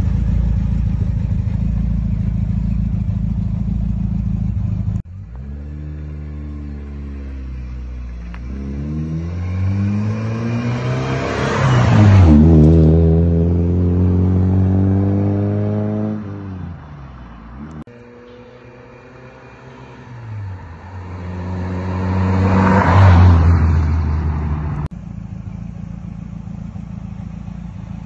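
Ford Granada driving past twice: each time its engine note climbs and grows louder as the car comes up under acceleration, peaks as it passes, then drops in pitch and fades away. A steady low rumble fills the first few seconds and the last few.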